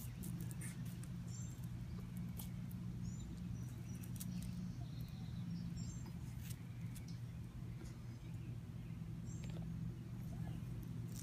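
Savannah monitor lizard chewing a hornworm, soft irregular clicks from its jaws, over a steady low hum. A few brief high chirps sound now and then.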